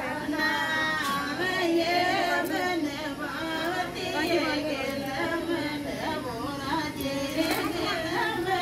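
Women singing a Rajasthani folk song together, a steady wavering melody.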